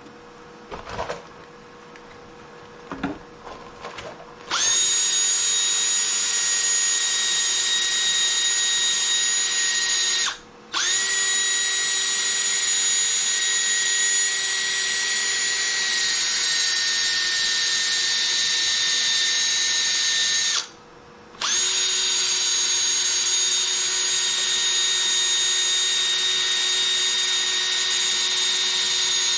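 Cordless drill spinning a 500-grit sanding pad to wet-sand a plastic headlight lens: a steady whine that starts about four seconds in, after a few small knocks, and stops briefly twice, around ten and twenty-one seconds in.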